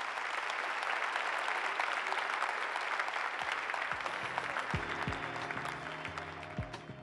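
Audience applauding, the clapping thinning toward the end. About halfway through, music fades in under it with low plucked notes.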